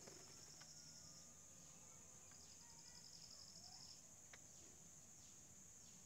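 Faint insect chorus: a steady high-pitched drone with a cricket-like pulsing trill that comes and goes twice, plus a few faint clicks.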